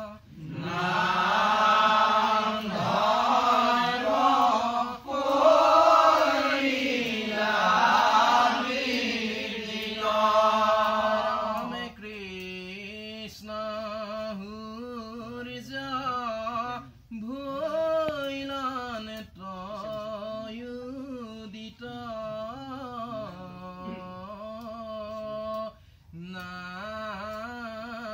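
Assamese Naam Prasang devotional chanting: several voices chant together for about the first twelve seconds, then it thins to one voice singing a long, wavering melodic line, broken by short pauses.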